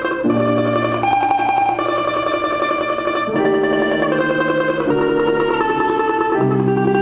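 A plucked string instrument plays a Russian folk song melody in long held notes, over lower accompanying notes that change every second or two.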